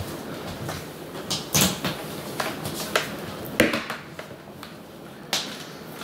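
Handling noises: a few scattered sharp knocks and clicks over a light steady hiss, as cables are set out around a DJ controller on a table.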